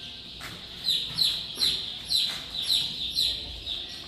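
A large brood of young chicks peeping: a steady high chorus with loud, short, falling peeps about twice a second.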